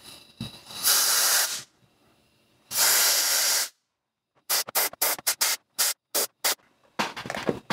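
Compressed-air blow gun hissing in two blasts of about a second each, then a quick run of about ten short puffs, as air is forced between a 3D-printed form and the set plaster mold to release the form.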